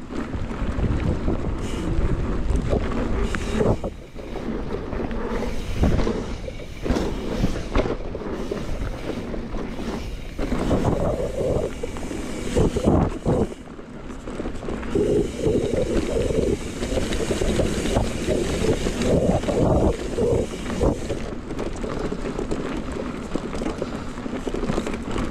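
Wind buffeting the microphone of a mountain bike's ride camera, over the rumble of knobby tyres rolling on a bumpy dirt trail, with frequent short knocks and rattles from the bike as it hits bumps.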